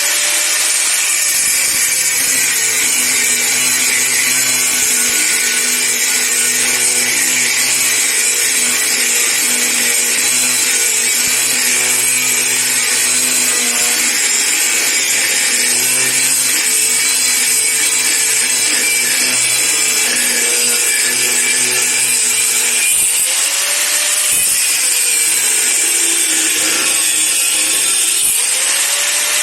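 Power tool cutting titanium plate: a steady, loud grinding hiss with a motor hum underneath.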